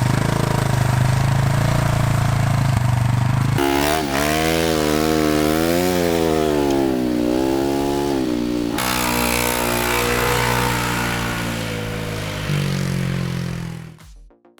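Small engine running steadily. About four seconds in, its pitch rises and falls repeatedly for around five seconds, as if revved or worked under load, then settles back to a steady run before cutting off near the end.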